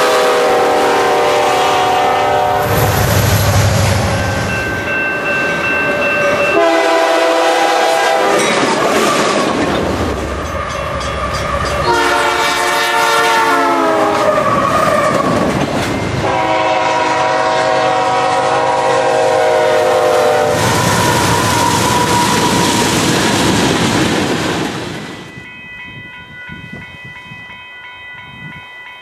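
Diesel freight locomotive air horns blowing four long multi-note blasts over the loud rumble and wheel noise of a passing freight train. One blast drops in pitch as the locomotive goes by. About 25 s in the train noise falls away sharply, leaving a fainter steady ringing tone.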